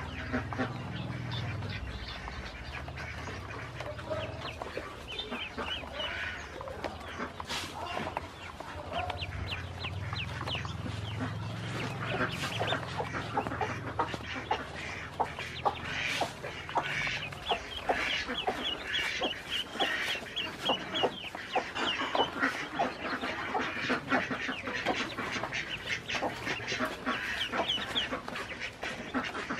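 A brood of ducklings peeping continuously, many short high calls overlapping, growing denser about halfway through.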